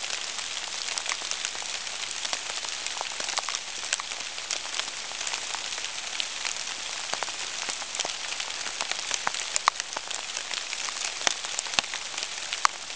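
Rain falling on leaves: a steady hiss with scattered sharp ticks of single drops striking.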